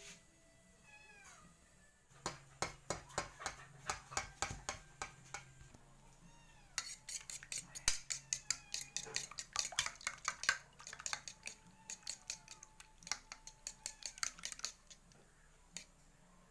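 Raw egg being beaten in a ceramic bowl with a metal utensil: rapid clinks of metal against the bowl, a short run starting about two seconds in, then a longer run after a brief pause.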